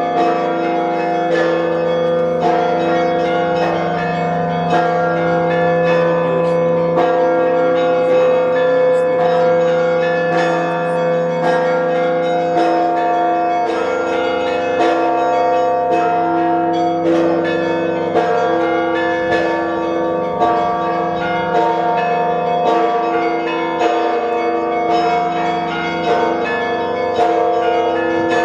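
Russian church bells ringing a continuous peal (zvon): several bells struck in quick succession, a few strokes a second, their tones ringing on over one another.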